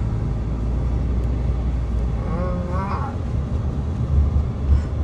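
Car running down the road, heard from inside the cabin: a steady low rumble of engine and road noise that grows heavier near the end, with a brief voice about halfway through.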